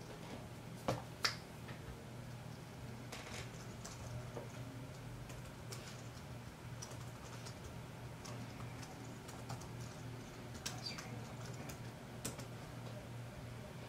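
Computer keyboard typing in scattered, light keystrokes, with two louder clicks about a second in, over a low steady hum.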